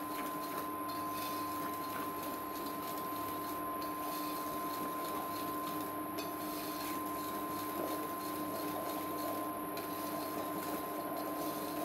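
Wire whisk beating thick chocolate cake batter in a ceramic bowl, over a steady mechanical hum with two held tones.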